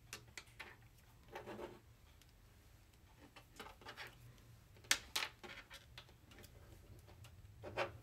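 Small clicks, taps and brief rubbing of diamond painting tools being picked up and set down on a desk and light pad. The sharpest two clicks come about five seconds in.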